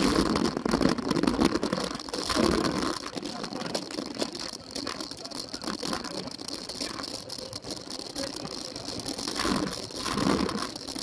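Cyclo-cross bike riding over a dirt and grass course, heard from a camera mounted on the bike: a steady rattle and rush full of small knocks from the rough ground. It is loudest in the first seconds and again near the end.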